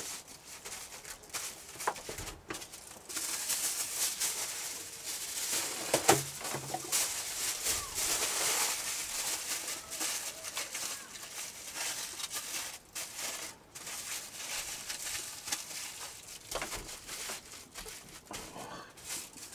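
Aluminium foil crinkling and rustling in irregular bursts as a piece of meat is wrapped in it.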